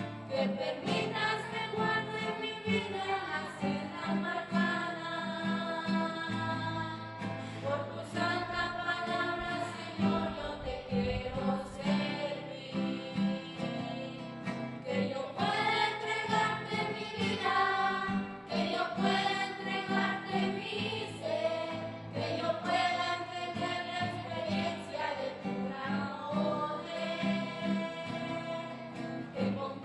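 A small group of children and a woman singing a hymn together, accompanied by a strummed acoustic guitar.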